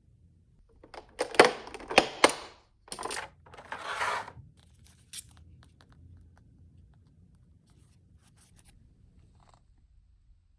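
Product packaging being torn open: a few seconds of loud tearing and rustling with several sharp snaps, then only faint small clicks and rustles of handling.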